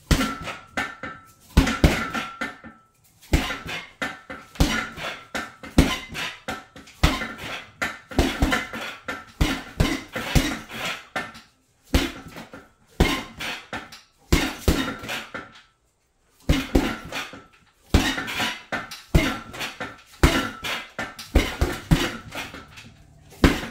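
Gloved jabs landing on a heavy punching bag in a steady run, about one to two a second with a couple of short pauses. Each hit is a thud with a metallic clank and brief ring from the bag's metal stand and the weight plate hanging on it.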